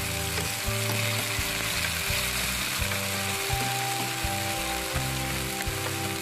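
Diced tomatoes and soy sauce sizzling in hot oil in a frying pan while being stirred with chopsticks.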